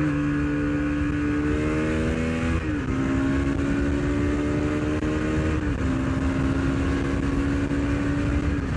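Bajaj Pulsar NS200 BS6's fuel-injected single-cylinder engine pulling under steady acceleration, its pitch climbing slowly in each gear and dropping at three upshifts, roughly every three seconds, over constant wind and road noise.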